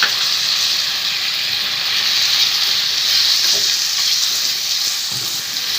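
Chicken pieces sizzling steadily in a little hot oil in a pan.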